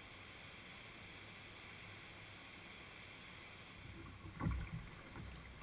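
Faint steady rush of shallow river current, with a cluster of low thumps and splashes about four and a half seconds in.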